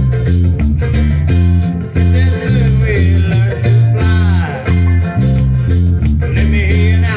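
A male-voiced island-pop song playing, with an electric bass guitar plucking the bass line along with it in short, evenly repeated low notes.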